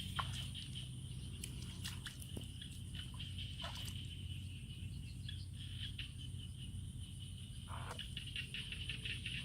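Insects droning steadily in a high-pitched chorus over a low steady hum, with scattered short knocks and brief splashy sounds.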